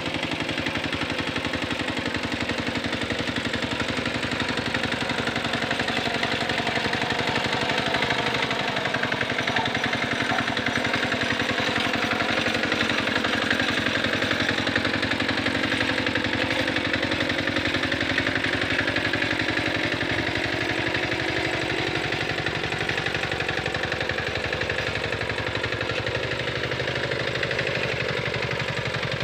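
Small engine of a Quick Capung Metal two-wheel hand tractor running steadily while it pulls a harrow through wet paddy mud, a little louder midway.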